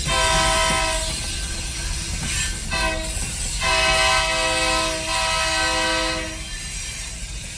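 Freight locomotive's multi-chime air horn sounding a chord of several notes in three blasts: two short ones about a second long, then a long one of about two and a half seconds.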